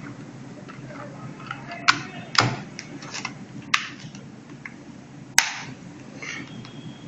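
Snap-on plastic back cover of a Wammy Titan smartphone being pressed onto the body, its clips catching with a few sharp clicks spaced a second or more apart.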